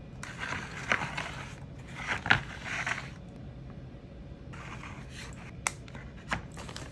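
Scraping and light clicks of plastic being handled as a hot glue gun is squeezed and a plastic doll chair is set onto a plastic planter base. The scraping comes in short stretches, with a few sharp clicks in between.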